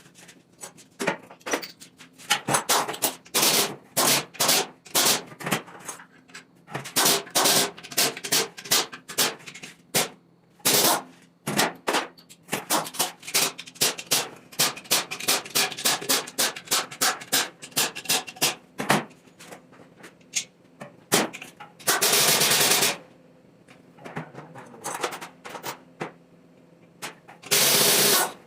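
Mechanic's hand tools on a Toyota 1FZ straight-six engine during an overhaul: irregular runs of rapid sharp clicks, ratchet-wrench style. Near the end come two steady bursts of noise, each about a second long.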